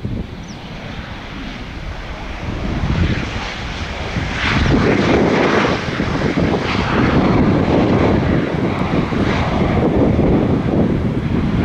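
Jet engines of a landing Boeing 737-800. The sound grows louder over the first few seconds and runs loud and steady from about halfway through.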